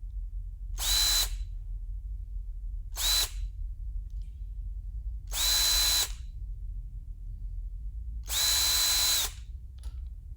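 Electric drill run in four short bursts, each a quick spin-up to a steady high whine and a spin-down, the longest about a second, with gaps of one to two seconds between them over a constant low hum.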